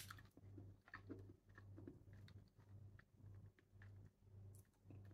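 Faint close-up chewing of sweet tamarind pulp: soft, wet mouth clicks and smacks, with a slightly sharper click right at the start.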